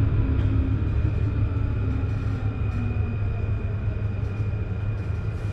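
Paris Métro Line 2 train heard from inside the car as it pulls into a station: a steady low rumble of wheels and running gear, with faint whining tones from the motors, one of them falling slowly in pitch as the train slows.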